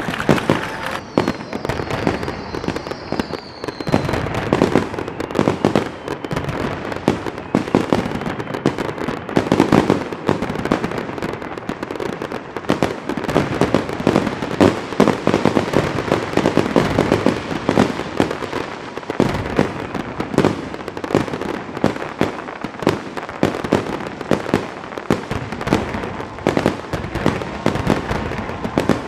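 Fireworks going off in a continuous barrage of bangs and crackles. A high whistle falls in pitch over the first few seconds.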